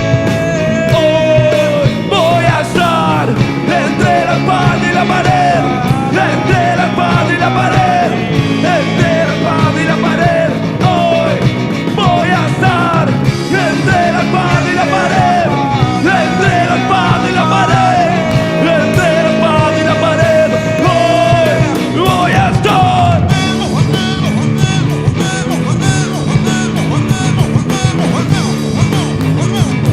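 Rock band playing live: an instrumental passage with a lead guitar line bending up and down over bass and drums, the cymbals and drum hits getting busier near the end.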